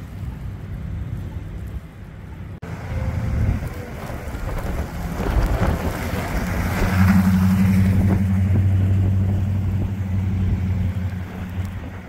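Vehicles driving on a slushy, snow-covered street: tyres hiss through the slush as a pickup truck passes about halfway through. A steady low engine hum follows and holds until near the end.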